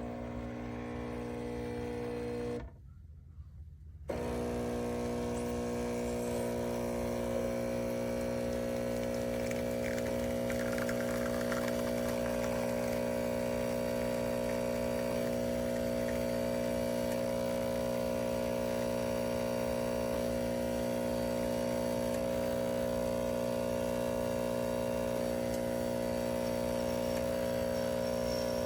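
Espresso machine's pump running with a steady electric hum as it brews. It cuts out briefly about two and a half seconds in and starts again about a second and a half later.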